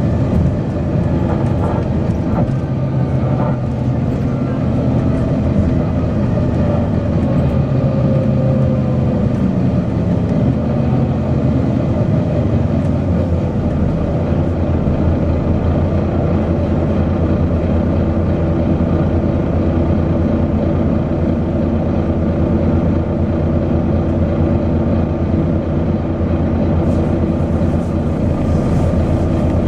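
Volvo B9TL double-deck bus's nine-litre six-cylinder diesel engine running steadily, with a faint whine that slides down in pitch about a quarter of the way through.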